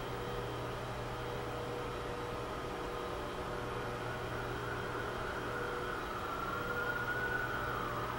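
Steady traffic hum, with a siren wailing from about six seconds in, its pitch rising and then falling.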